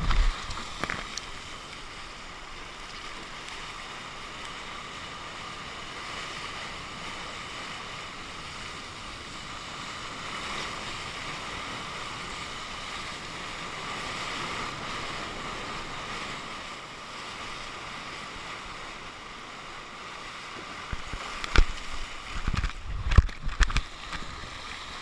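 Steady rush and hiss of water streaming along a surfboard riding a wave. Near the end come a few loud, sudden splashes and knocks of water against the board.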